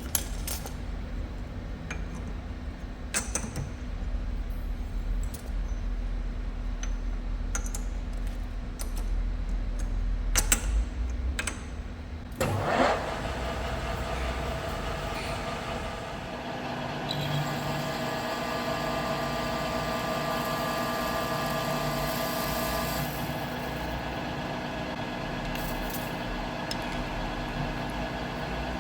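Metal-working machine tool in a workshop: a low rumble with scattered clicks and knocks at first, then a sharp clunk about twelve seconds in. After that the machine settles into a steady running hum with a high whine.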